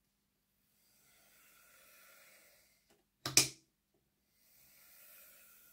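Hornby J15 OO gauge model locomotive's small electric motor and gears whirring faintly as it runs on a test track, freshly lubricated. The whirr swells up and fades away twice, with a sharp click between the two runs.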